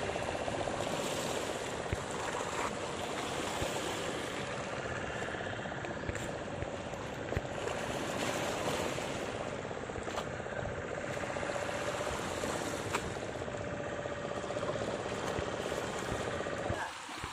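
Small waves washing against shoreline rocks and water churning around a wading man, over a steady mechanical hum.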